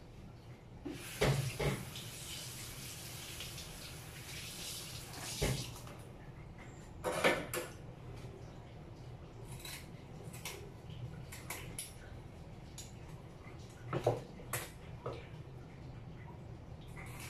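Kitchen tap running for a few seconds from about a second in, then scattered knocks and clinks of dishes and utensils as a raw fish is handled over a plate by the sink.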